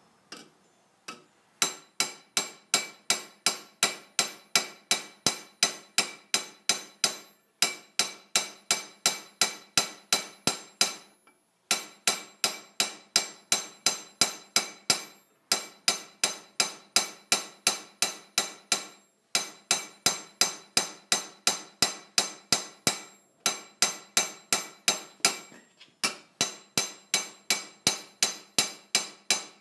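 Hand hammer striking a copper vase body over a steel stake, about three ringing blows a second in runs of several seconds, with short pauses as the piece is turned.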